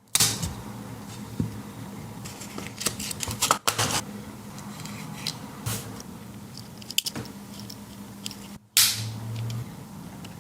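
Scattered sharp clicks and short rustling handling noises, as a Victorinox Swiss Army knife is handled and worked, over a faint steady low hum.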